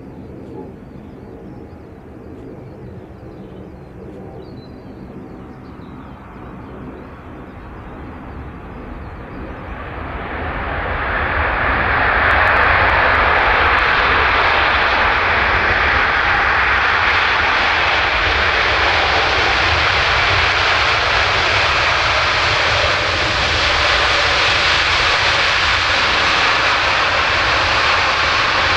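Aircraft engine noise, faint at first, growing steadily louder over a few seconds about a third of the way in. It then stays loud and steady as the aircraft comes close.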